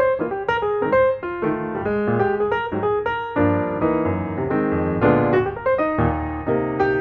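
Background piano music: a steady run of notes with chords underneath.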